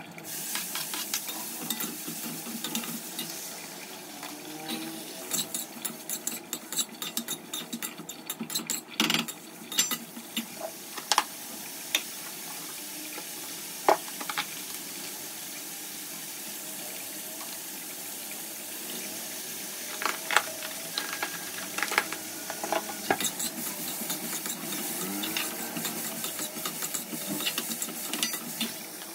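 A spoon stirring and scraping a potato sabzi in a pan over the sizzle of hot oil, with frequent sharp clicks of the spoon against the pan. The clicking comes in two busy spells with a calmer stretch of sizzling between them.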